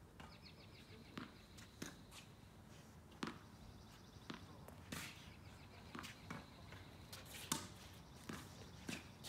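Tennis ball hit back and forth with rackets and bouncing on a hard court: a string of sharp, short pocks, roughly one every half second to second, some louder than others.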